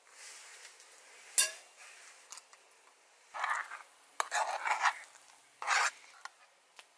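Water poured into an aluminium mess tin of grits, a sharp metal clink about a second and a half in, then a metal utensil stirring and scraping the grits against the tin in three short bouts.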